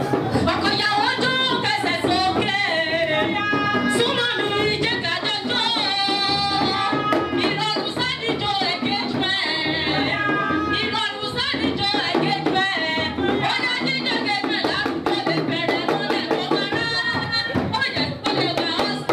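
Women singing into microphones over music with percussion, amplified through a sound system.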